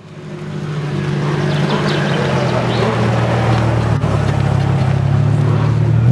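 BMW M5 V10 engine with custom exhausts running steadily at low revs, a deep even drone that fades in over the first second.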